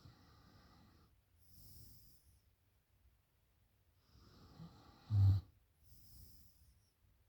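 A drunk woman breathing heavily in her sleep: two slow breaths, each a noisy inhale followed by a hissing exhale. The second inhale ends about five seconds in with a short, loud, low snore.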